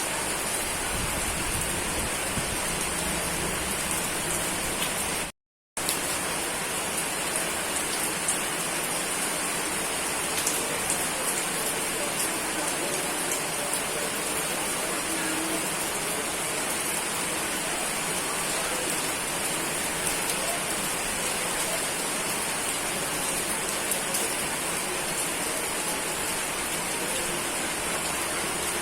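Steady rain falling, an even hiss with scattered drop ticks, with a faint low rumble beneath it for the first few seconds. The sound cuts out completely for about half a second, about five seconds in.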